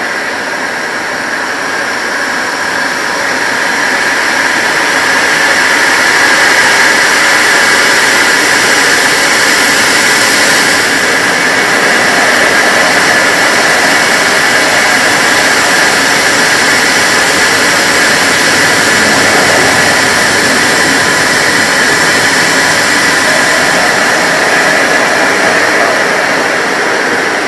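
The Handley Page Victor's Rolls-Royce Conway jet engines running, heard inside the cockpit: a dense rushing noise with a steady high whine. It builds over the first few seconds, then holds steady.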